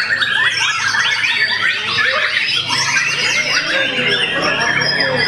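Several white-rumped shamas (murai batu) singing at once, a dense, overlapping run of rapid whistles and trills.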